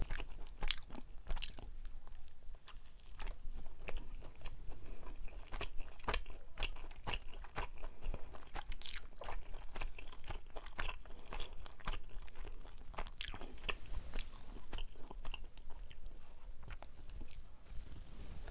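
Close-miked chewing of a soft mugwort rice cake (ssuk-baekseolgi) made to look like a loofah, with many short, irregular mouth clicks.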